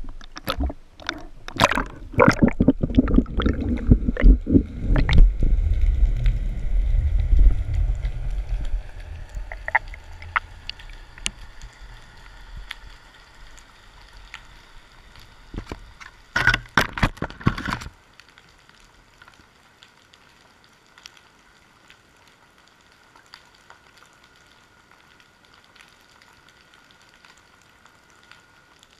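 Seawater splashing and sloshing around an underwater camera's housing as it goes in at the surface, with knocks and a heavy low rumble that die away over the first ten seconds or so. A short cluster of knocks comes later, then only a faint underwater hiss with the odd tick.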